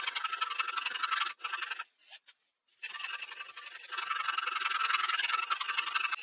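A steel hand file rasping over a wooden knife handle in quick back-and-forth strokes, shaping the handle. The filing stops for about a second, two seconds in, then carries on.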